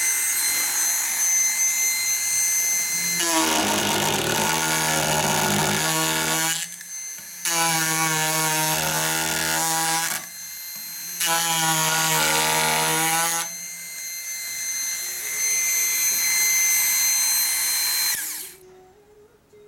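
PROXXON MSG electric carver running with a steady high whine, its reciprocating round gouge blade cutting into wood in three bouts of a few seconds each, which bring in a lower buzzing chatter. The motor is switched off near the end.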